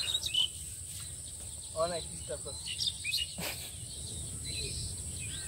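Insects at a rural pond keep up a continuous high-pitched drone, with scattered short bird chirps above it. A brief voice is heard about two seconds in, and there is a single sharp click a little after halfway.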